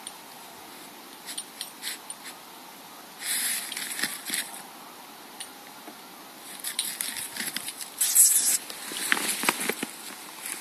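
A dog sniffing hard with its nose pushed into a molehill, hunting the mole underground: several bursts of rapid sniffs, the loudest a little after eight seconds in, with scattered scratchy clicks as it works the soil and snow.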